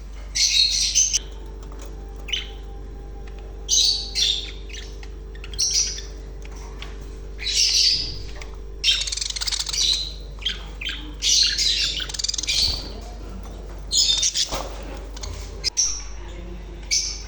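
Small caged parrots, lovebirds and budgerigars, calling in short harsh, shrill squawks and chirps, a burst every second or two. A steady low hum runs underneath.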